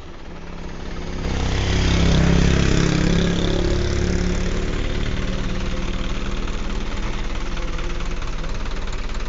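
Mitsubishi truck's diesel engine running with the cab tipped up. It grows louder about a second in, runs higher for a couple of seconds, then settles to a steady idle.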